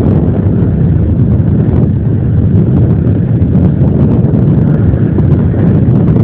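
Steady low rumble of a SAME Silver 100.6 tractor's engine running under ploughing load, heard from a distance through heavy wind buffeting on the microphone.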